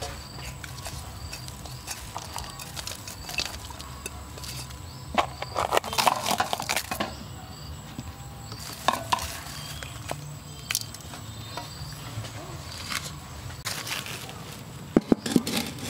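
Cooking handling sounds: chopped chilies, tomatoes and garlic tipped from a plate onto vegetables and eel in a metal wok, with a cluster of rustling clatters about five to seven seconds in and scattered clicks after.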